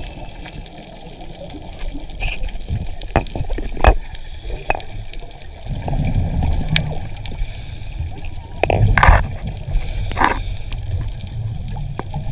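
Underwater sound picked up by a diver's camera: gurgling, sloshing water noise with scattered sharp clicks and knocks, and louder rushing surges a few times, strongest about nine seconds in.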